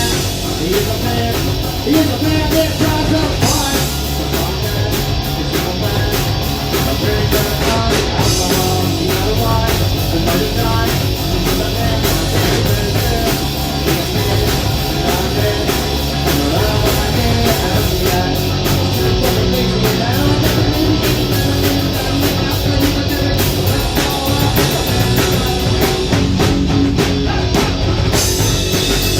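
Live rock band playing loud, with a drum kit driving a steady beat under electric guitars.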